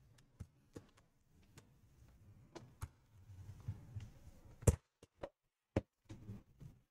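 Scattered light clicks and taps from handling laptop parts and the plastic casing, with one sharper knock a little after halfway.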